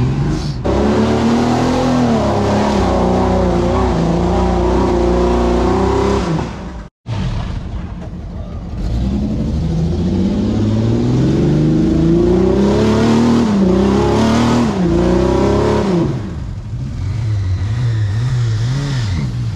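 Off-road 4WD engine revving hard under load, its pitch climbing and dropping as the driver works the throttle. About seven seconds in the sound cuts out briefly and a second engine run follows, rising and falling again before settling to a lower, wavering note near the end.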